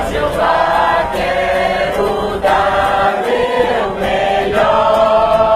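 A mixed group of voices singing a Portuguese hymn together in unison, with held notes, to a strummed acoustic guitar.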